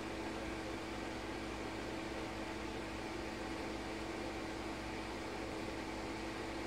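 Steady machine hum with an even hiss and one constant low tone, unchanging throughout.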